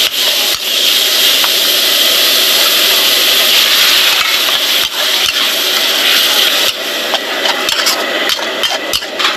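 Chopped vegetables and minced meat sizzling in a hot wok while a metal spatula scrapes and taps against the pan. The sizzle eases somewhat near the end as the scraping and clicking grow more frequent.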